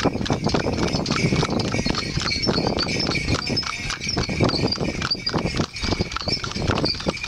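Hooves of two cart horses clip-clopping on a paved road, a rapid, irregular stream of hoof strikes as the pair pulls the cart along.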